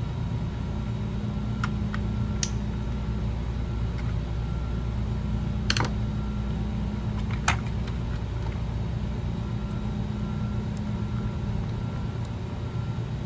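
A few sharp little clicks and taps of a toy tank's plastic parts being handled and taken apart, two of them louder about six and seven and a half seconds in, over a steady low background hum.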